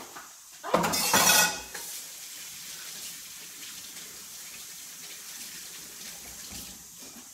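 Kitchen faucet running into a stainless steel sink: a loud splash about a second in, then a steadier flow of water over hands, shut off near the end.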